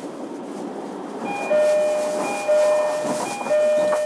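Two-note door-closing chime, a high note then a lower one, sounding three times about a second apart over the low hum of a stopped electric train.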